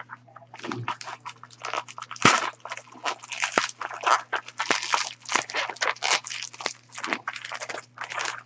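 White packing wrap crinkling and rustling in quick irregular crackles as it is handled and pulled off a package.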